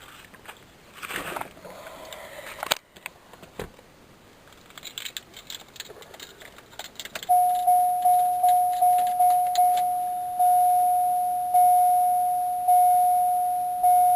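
Keys jangling and clicking for the first few seconds, then the 1994 Cadillac DeVille's dashboard warning chime dinging: a single clear tone, about four dings a second at first, then slowing to about one a second.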